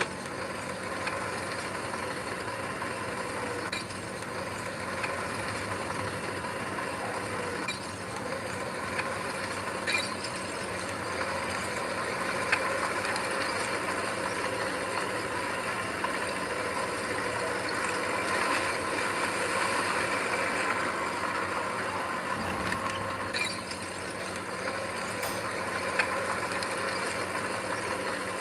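Diesel engine of heavy earthmoving machinery running steadily, with a few sharp metallic clicks and clanks.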